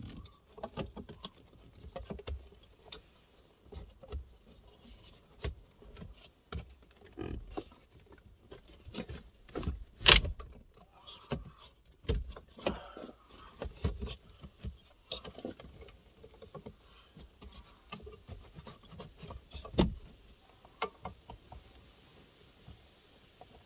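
Irregular clicks, knocks and rattles of hand work on a car's interior wiring, connectors and plastic trim, with one sharp knock about ten seconds in and another near twenty.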